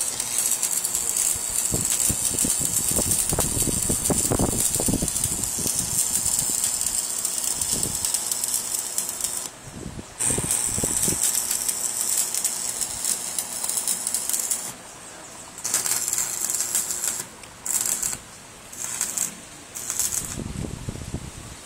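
Stick-welding arc crackling and sizzling steadily as the electrode fuses the steel bars of a grill. It breaks off briefly about ten seconds in, runs again, then comes in several short bursts near the end as the rod is struck and lifted.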